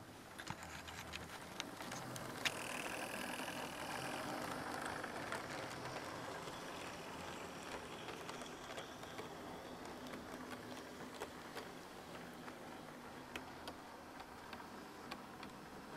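Bachmann OO gauge model diesel multiple unit running on model track: a steady rattling hum of motor and wheels with scattered sharp clicks over the rail joints. It swells a couple of seconds in as the unit passes close, then eases off.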